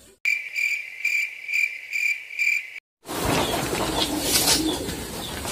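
Cricket chirping, a steady high chirp repeating about twice a second, that starts and stops abruptly like an edited-in effect. After a moment of dead silence, a rougher, noisier sound takes over for the last couple of seconds.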